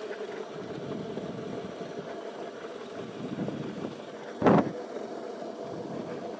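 Small electric dirt bike's motor whining steadily as it is ridden, with one short loud burst of noise about four and a half seconds in.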